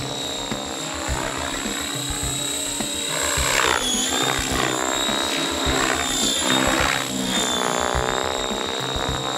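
Large radio-controlled 3D helicopter flying aerobatics: a high steady whine over rotor noise that swells and fades in sweeps as it swoops, the whine dipping slightly in pitch twice as it passes.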